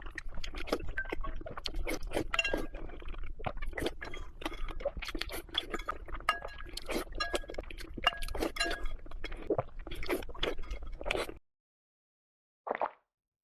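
Raw eggs being handled and eaten: a dense run of quick clinks, taps and cracks, some ringing briefly like glass. It cuts off sharply near the end and is followed by one short knock.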